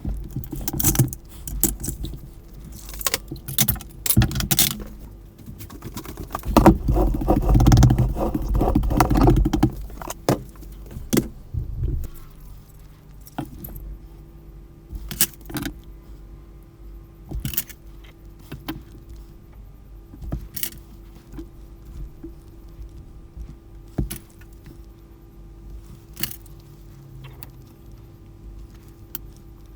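Plastic parts and small screws of a Sanyo cordless telephone clicking, tapping and rattling as it is taken apart by hand, with a dense spell of rattling about six to ten seconds in and scattered single clicks after that.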